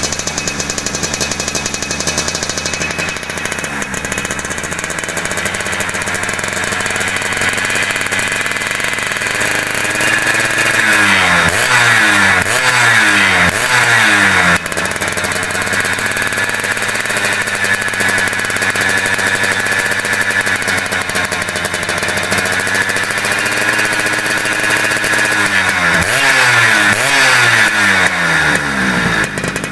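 Underbone motorcycle engine idling, then revved in several quick blips twice, around the middle and again near the end.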